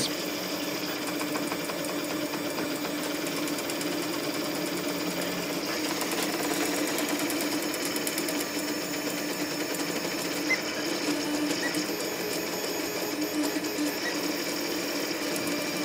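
Orcinus (Orca) 3D printer running a 600 mm/s, 35,000 acceleration speed test: its LDO stepper motors on TMC5160 drivers whir and buzz as the print head darts back and forth. The sound is steady, with a fast, fine ticking that grows denser from about halfway.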